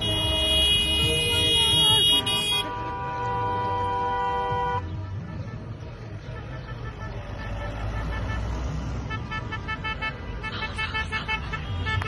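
Car horns blaring from a convoy of cars driving past. One long horn blast, then a second, lower horn held for about two seconds, and a run of quick short toots near the end, over the low rumble of engines and tyres.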